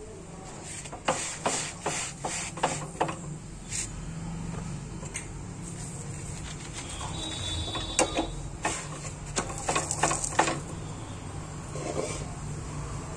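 Kitchen sounds while a paratha cooks on an iron tawa: a steady low hum with two runs of quick clicks and taps, one about a second in and another around eight seconds in.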